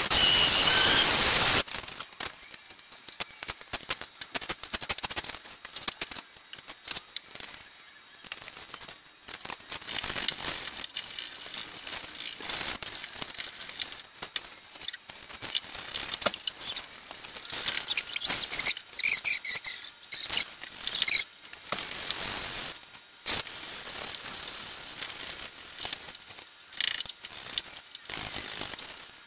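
Handheld random-orbital sander running on the truck hood, cutting off about a second and a half in. After that come irregular rustling, light knocks and handling sounds as a cloth is wiped over the panel, with a brief squeaking about two-thirds of the way through.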